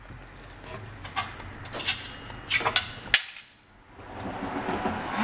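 A plastic vending-machine coin tray full of quarters being handled: about four sharp clicks and coin clinks, spread out, as the tray is moved and set down.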